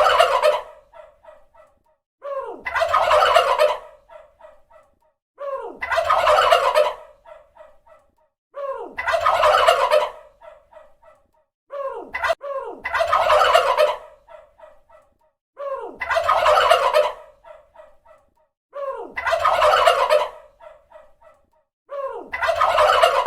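Turkey gobbling, the same gobble repeated about every three seconds: a loud rattling call, then a trail of quick, fainter notes.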